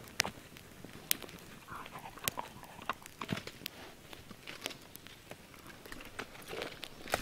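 Wood campfire crackling with sharp, irregular pops, while a dog moves about close by.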